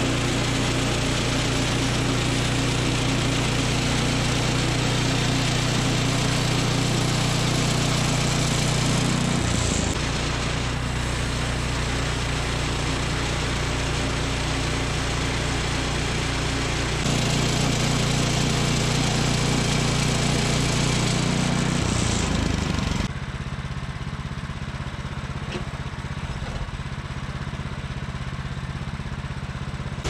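The 14 hp gas engine of a Woodland Mills HM126 portable bandsaw mill runs steadily under load as the band blade cuts through a cedar log. The sound shifts abruptly a few times. In the last several seconds it runs quieter, with much less hiss.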